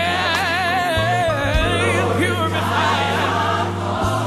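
Gospel music: a lead voice glides up and then wavers through a long run of notes over a choir and a steady bass line.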